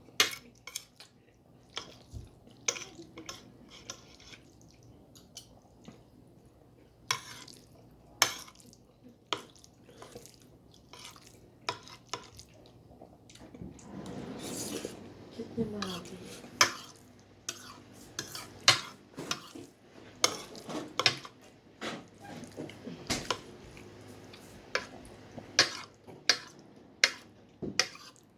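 Spoon and fork clinking and scraping against a plate while eating, in many short, sharp, irregular clicks.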